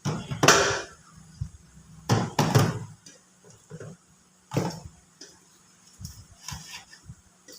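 Plastic food containers and bags being handled and moved about inside a refrigerator: a few short rustles and knocks, the strongest about half a second in and about two seconds in.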